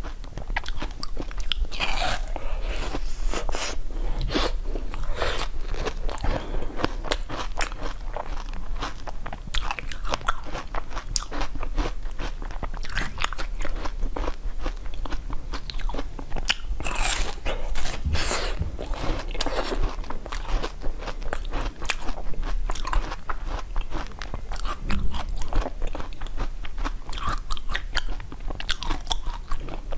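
Hard ice frozen with basil seeds being chewed and crunched between the teeth: a dense, continuous run of cracks and crackles, with louder crunching bites every few seconds.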